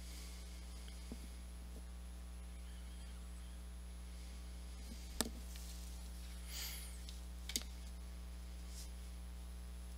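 Steady low electrical hum, with a few faint clicks (the sharpest about five seconds in, another about two and a half seconds later) and a brief rustle between them.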